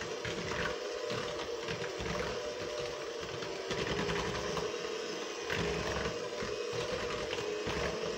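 Electric hand mixer running steadily, its beaters working through cake batter in a bowl. The motor gives a steady hum, with scattered short clicks throughout.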